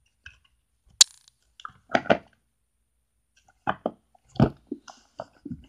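Handling noise from toys and containers: a sharp click about a second in, then scattered knocks and thumps as a large round container is moved and tipped.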